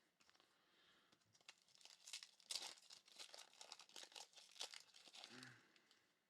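Faint crinkling and tearing of a trading-card pack wrapper being ripped open and handled: a run of small crackles that starts about a second and a half in and stops shortly before the end.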